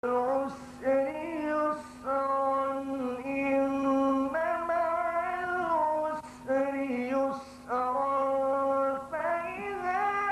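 A single voice singing long, held melodic phrases with slight ornaments on the notes, with short pauses between phrases.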